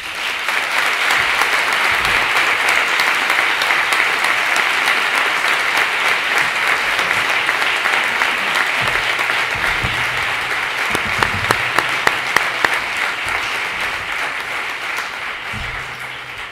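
An audience applauding a speaker. The applause breaks out all at once, holds steady, and eases off near the end.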